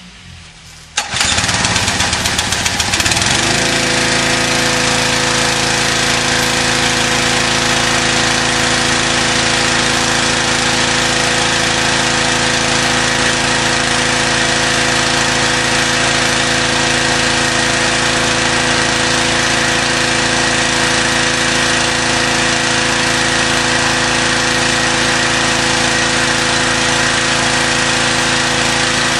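Campbell Hausfeld pressure washer starting up about a second in, then running steadily at a constant pitch.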